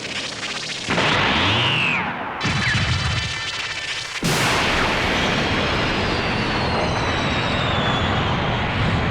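Cartoon energy-blast and explosion sound effects layered together: loud blasts crash in about a second, two and a half and four seconds in, the last one running on as a long rumble with thin whines sliding down in pitch over it.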